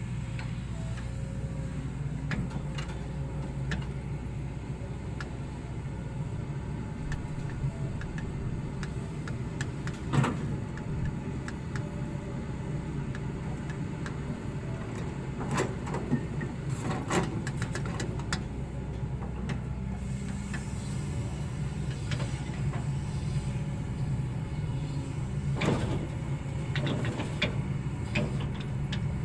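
Excavator's diesel engine running steadily, with a few sharp knocks from the hydraulic rotating grapple at work.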